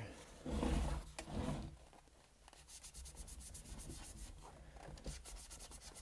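Damp magic eraser (melamine sponge) scrubbing a Roomba's metal charging contacts in quick, even back-and-forth strokes, cleaning them to cure a robot vacuum that won't take a charge. A louder low handling rumble comes in the first couple of seconds, before the steady scrubbing.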